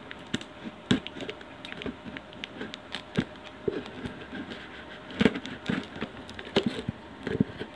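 Folding knife blade cutting along the seams of a small cardboard box: irregular scratchy scrapes and clicks of steel on cardboard, with the box being handled, the sharpest a little after five seconds in.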